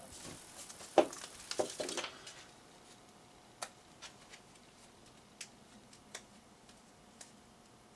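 Handling noises on a desk as paper and small objects are picked up and set down: a sharp knock about a second in, a quick run of taps and rustles, then a few faint scattered clicks.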